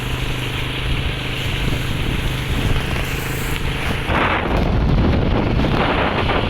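Strong storm wind gusting and buffeting the microphone, with a heavier, deeper gust starting about four seconds in.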